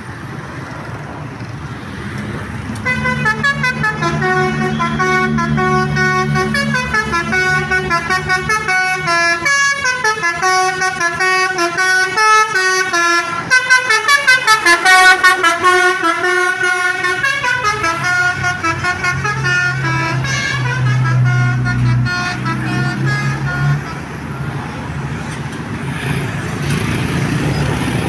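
Basuri V3 telolet musical horn playing a long multi-note melody that steps up and down, with a fast run of alternating notes near the middle, over a steady low vehicle engine hum. The horn starts a few seconds in and stops a few seconds before the end.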